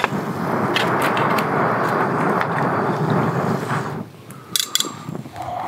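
A person blowing a long, steady breath onto a small campfire to liven the flames; the blowing stops about four seconds in, followed by a few light clicks.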